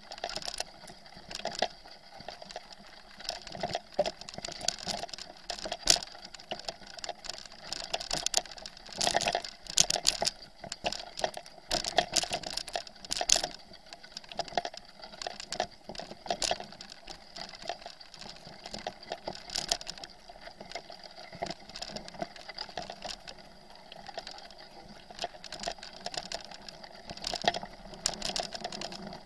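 Bicycle rolling over a rough, rutted dirt track, rattling and clicking unevenly as the tyres hit bumps and stones, with louder knocks now and then.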